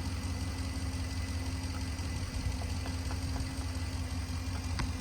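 Truck engine idling steadily while hooked up with booster cables to jump-start a skidder, with a few faint clicks and one sharper click near the end.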